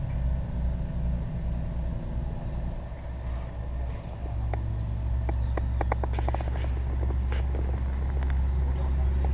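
Steady low machine hum, with a quick run of light clicks and taps a little past the middle.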